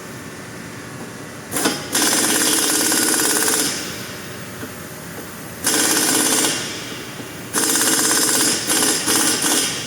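Pneumatic impact wrench rattling in four bursts: a short blip, then bursts of about one and a half, one, and two seconds.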